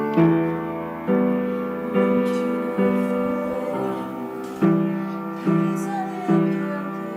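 Piano playing slow chords, a new chord struck a little under once a second and left to ring and fade.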